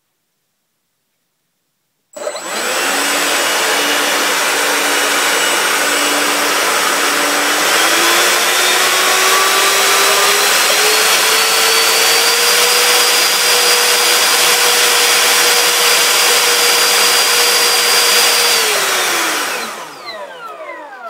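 Changesun 10-blade 70 mm electric ducted fan on a 3000 kV outrunner, mounted in the twin-intake ducting of a foam F-15 model jet, starting up about two seconds in with a loud rush of air and a whine. The whine steps up in pitch to full throttle, holds steady, then spools down near the end.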